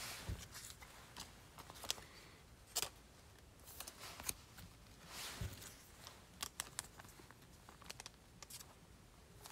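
Faint, irregular clicks and soft rustles of baseball cards being handled and slid into card sleeves.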